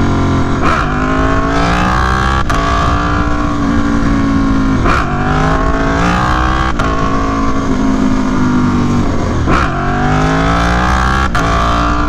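Aprilia Tuono V4 Factory's V4 engine pulling hard under open throttle in a series of runs. Its pitch climbs steadily, then breaks off and drops sharply about five times before climbing again, with wind rushing over the rider's helmet-mounted microphone.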